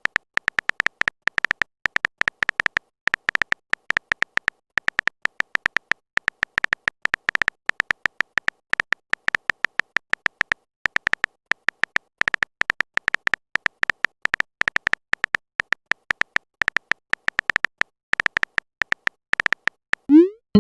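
Rapid, irregular short electronic blips, all at the same high pitch, coming in quick runs with brief pauses: a typing sound effect for on-screen chat messages. Near the end there is a quick rising swoop.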